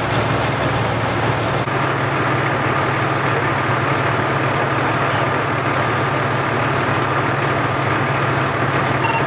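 Fire engine's diesel engine idling close by: a steady low drone, with a faint high whine joining in about two seconds in.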